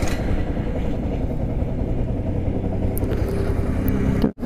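Yamaha R15's single-cylinder engine idling at a standstill, a steady low rumble that cuts off abruptly near the end.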